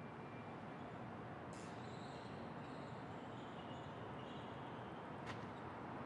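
Quiet city street ambience: a steady, even hum of distant traffic. A faint high, wavering sound comes in about a second and a half in and fades after a few seconds, and a single sharp click comes near the end.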